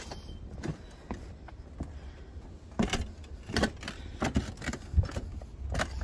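Work boots walking on a Spanish tile roof, each step a short knock on the tiles, falling into a steady pace about halfway through.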